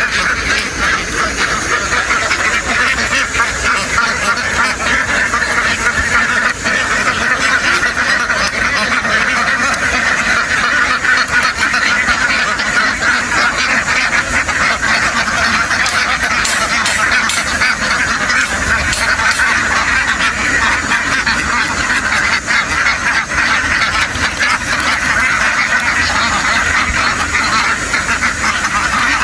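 A huge flock of ducks quacking all at once, a dense unbroken din of overlapping calls that holds steady throughout.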